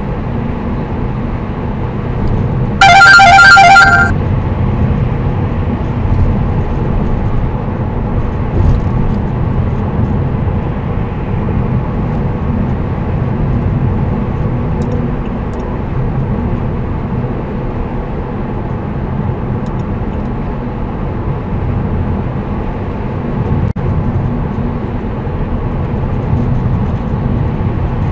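Steady road and tyre noise inside a Saab 9-5's cabin at motorway speed, about 120 km/h. About three seconds in, a rapid run of loud electronic beeps lasting about a second: the Garmin Dash Cam 55's lane departure alert going off.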